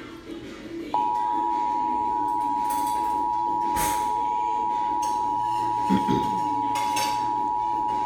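Emergency Alert System two-tone attention signal, two steady tones sounding together, starting about a second in and holding without change. It is played back from a laptop over fainter cartoon audio and marks the start of a Required Monthly Test alert.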